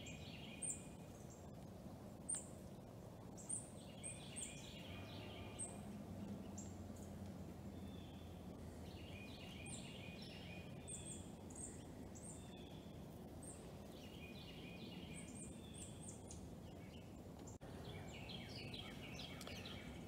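Faint chirping and twittering of small wild songbirds: short, very high chirps scattered throughout, with bursts of twittering every few seconds, over a steady low outdoor background noise.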